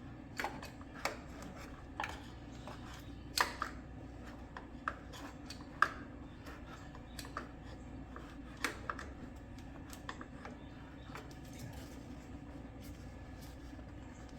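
Scattered sharp metallic clicks and clinks of a hand tool working on the oil filter housing cap as it is tightened, coming often for about nine seconds, then only now and then.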